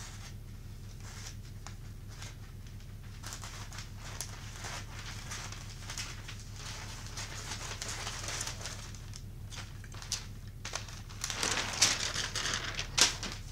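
Wrapping paper rustling and crinkling as it is handled and cut, growing louder near the end, with a sharp knock just before the end. A steady low electrical hum runs underneath.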